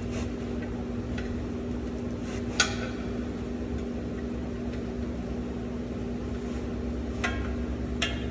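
A few sharp metal clinks of hand tools on truck drum-brake shoes and springs, the clearest about two and a half seconds in and two smaller ones near the end, over a steady hum.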